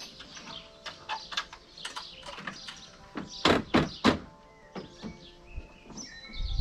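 Metal hooks on the wooden load bed of a Lanz Alldog A 1806 being unlatched by hand: a run of light clicks and knocks, with two louder clunks about three and a half and four seconds in.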